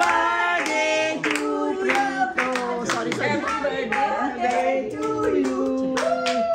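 A small group clapping hands at an uneven beat while singing together, with sharp claps over held, sliding sung notes.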